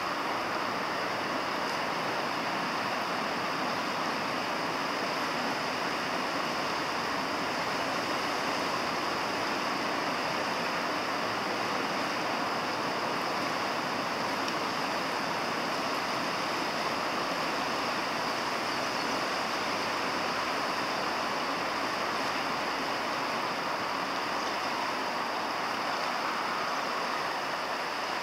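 River current rushing steadily past the wading angler.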